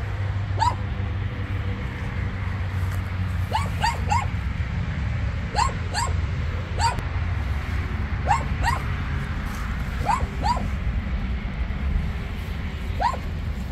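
A small dog giving short, high yips, about a dozen scattered through, some single and some in quick runs of two or three, over a steady low rumble.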